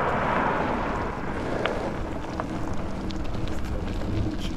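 Wind noise on an action camera's microphone and the rolling noise of an e-bike being ridden along a track, with a few small clicks about one and a half and two and a half seconds in.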